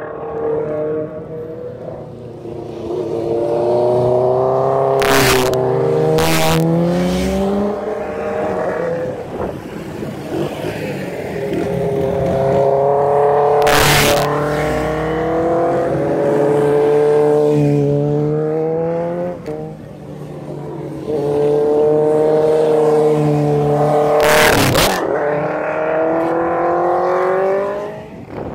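Sport motorcycles powering through a bend one after another, engines revving, the engine note climbing and falling with the gear changes. A few short, loud bursts of noise break in along the way.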